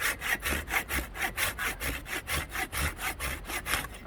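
Hand saw cutting through a long-dead, dry firewood log in quick, even strokes, about five a second; old dead wood like this saws fairly easily.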